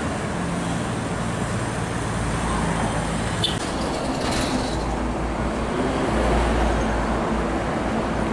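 Steady expressway traffic noise with the low drone of heavy diesel trucks running past, the rumble growing a little louder about six seconds in.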